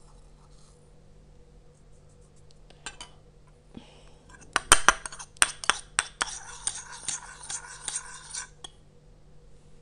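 Steel spoon clinking and scraping against a small ceramic bowl while stirring aloe vera gel and coffee powder together: a few sharp clinks about halfway through, then a couple of seconds of quick stirring scrapes that stop shortly before the end.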